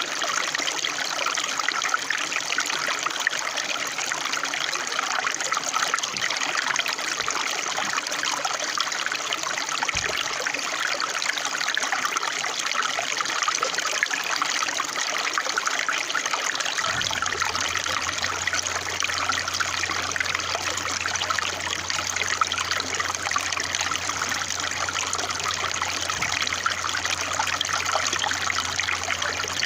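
Running water trickling and splashing steadily, like a small stream. A low steady hum joins about halfway through.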